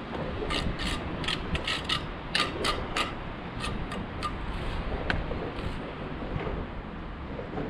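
A quick run of short scrapes and clicks from a bricklayer's hand tools working stone and mortar. The strokes are packed close together for the first few seconds, then come more sparsely, over a steady low rumble.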